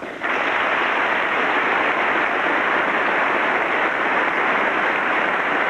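Members of Congress applauding in a large chamber, a dense, steady clapping that starts abruptly just after a line of the speech ends.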